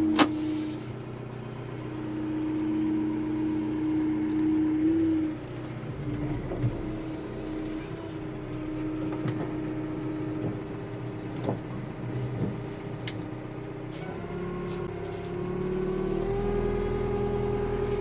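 Manitou telehandler's diesel engine running, its note rising and falling a few times and climbing higher near the end, with a few short knocks and rattles.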